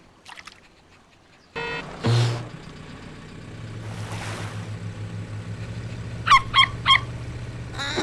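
Cartoon jeep engine starting about one and a half seconds in, then running with a steady low hum. Near the end, three short honking squawks from the young pelican come in quick succession.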